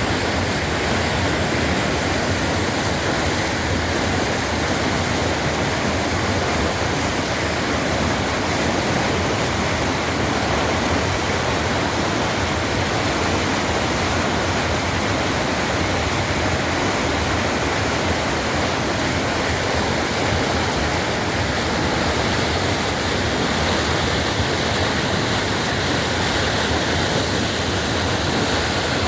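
Waterfall on a small river: water pouring and splashing in a steady, loud rush with no let-up.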